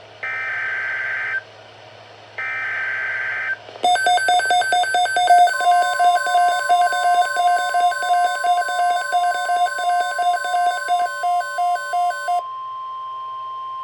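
NOAA Weather Radio Specific Area Message Encoding (SAME) alert header: two short bursts of warbling data tones, about a second each. Then a loud electronic alarm pulses rapidly between two pitches, and about five and a half seconds in the steady 1050 Hz weather-radio warning tone starts and holds. Together they mark the start of an emergency alert, here a severe thunderstorm watch.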